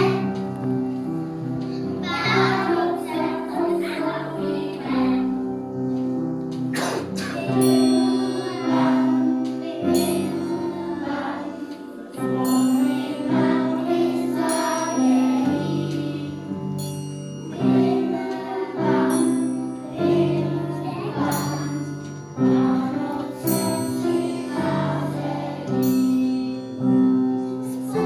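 A group of young children singing a song together over a music accompaniment of steady held notes, with short high tinkles about every second and a half from about eight seconds in.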